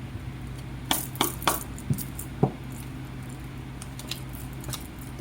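A handful of sharp light clicks and taps, about five in quick succession starting about a second in, over a steady low hum.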